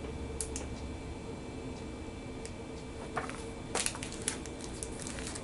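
Comic books being handled: a few faint rustles and light taps of paper, the clearest about four seconds in, over a low steady room hum.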